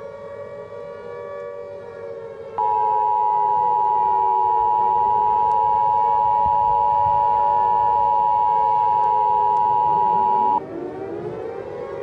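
Civil defense siren wailing, its pitch slowly rising and falling. About two and a half seconds in, a loud steady Emergency Alert System attention tone starts over it and cuts off about eight seconds later, and near the end a second siren winds up in pitch.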